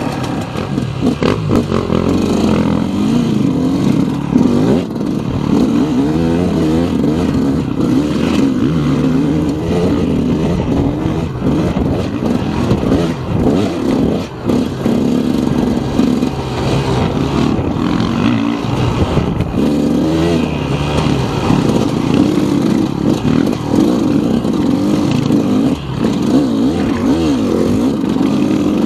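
A KTM enduro dirt bike's engine runs close by while being ridden, its pitch wavering up and down as the throttle is worked. Short knocks and clatter from the bike and the stony trail run through it.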